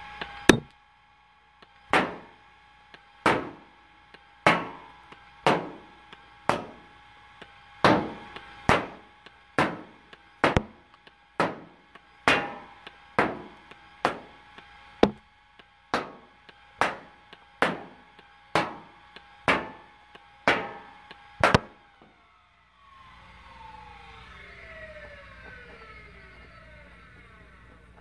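A 3D-printed two-stage, four-flywheel Nerf blaster with Neo Rhino motors firing about twenty darts, roughly one shot a second, each a sharp crack over the steady whine of the spinning flywheels. Near the end the flywheel motors wind down with a falling whine.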